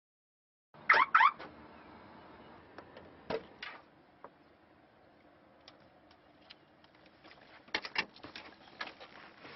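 Two short electronic car-alarm chirps in quick succession about a second in, as the car is unlocked, then scattered clicks and knocks of the car door and interior as someone gets in.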